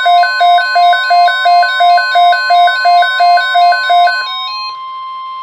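NOAA Weather Radio 1050 Hz warning alarm tone, steady and loud. Over it a two-tone hi-lo alarm alternates about three times a second, stopping about four seconds in and leaving the steady tone alone.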